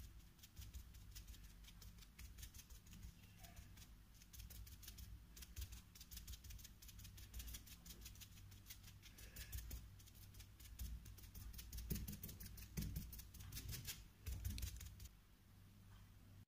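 Quick, faint dabbing of acrylic paint onto canvas paper: a rapid run of soft crisp taps, several a second, that stops near the end, over a steady low hum.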